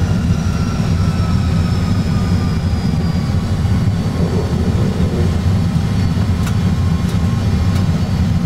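Airbus A320 full flight simulator's aircraft sound: a steady low rumble of engines and rolling, with faint high whines that slowly fall in pitch over the first few seconds.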